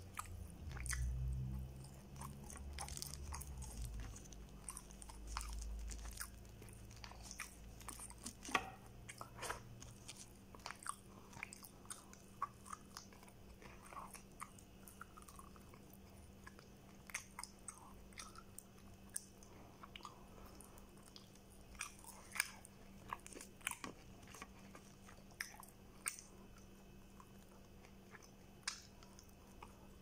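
Chewing and biting while eating rice and fried chicken by hand, with scattered crunches and short clicks. A low rumble runs through the first few seconds.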